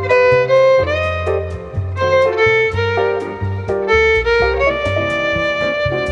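Background music: a bowed violin melody over a bass line with a steady beat.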